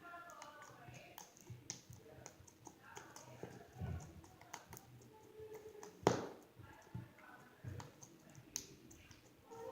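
Sticky slime being poked and squished by hand, making a run of small wet clicks and pops, with one louder pop about six seconds in.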